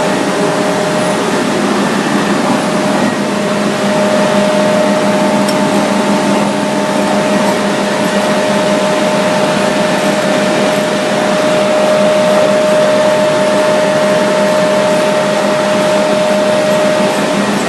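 Industrial machinery running steadily: a loud, even noise with a constant whine through it that drops away near the end.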